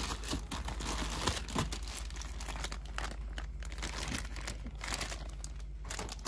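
Plastic zip-top bags crinkling and rustling in irregular bursts as hands dig through a tub of bagged loose action figures, then pick one bag up and handle it.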